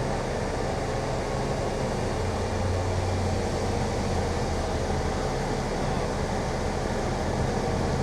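Heavy diesel crane engine running steadily under a lift: a low, even drone, its note deepening slightly for a second or so about two seconds in.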